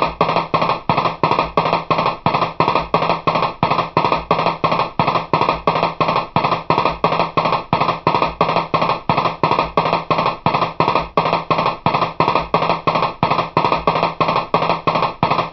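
Background music with a fast, steady beat of about four or five strokes a second.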